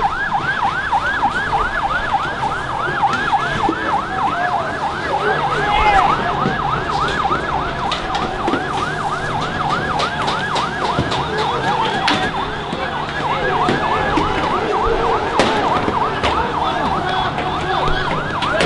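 Police siren on a fast yelp, sweeping up and down about three times a second, with a second siren gliding underneath at times. Scattered sharp clicks and knocks sound through it.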